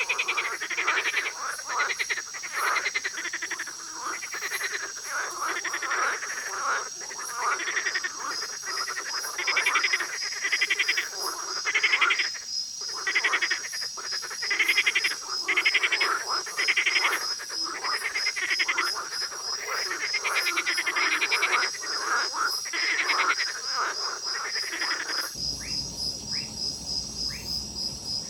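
Chorus of many frogs croaking in overlapping pulsed calls that swell about once a second, over a steady high-pitched trill. Near the end it cuts abruptly to a quieter scene of short rising chirps over a low hum.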